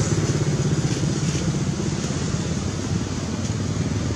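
Steady rumble of road traffic, the engines of passing vehicles running on without a break.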